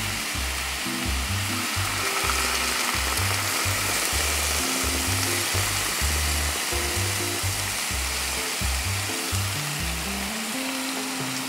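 Hot frying pan of browned beef and vegetables sizzling steadily as red wine is poured in and stirred with a spatula (deglazing), over background music with a steady bass line.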